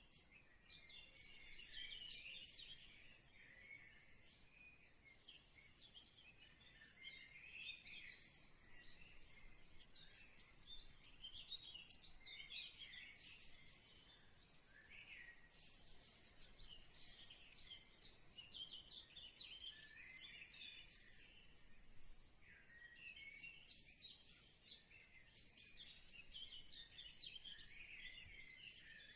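Faint birdsong: many small birds chirping and twittering in a continuous, overlapping chorus of quick high chirps.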